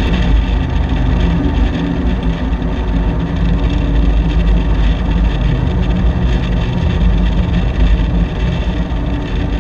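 A car's engine running steadily as it drives along a road, heard from a camera mounted on its front fender: a low engine drone mixed with the rush of wind and tyre noise.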